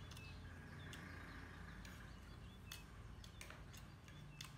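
Faint clinks of a metal spoon against a ceramic plate, a handful of short ticks scattered through, some with a brief high ring, the loudest near the end.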